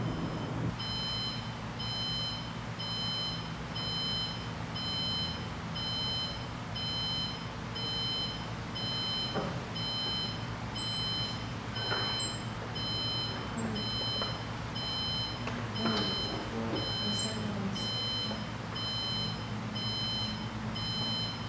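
Electronic alarm clock beeping over and over in an even, high-pitched pattern, starting about a second in. A few brief knocks and rustles come in partway through.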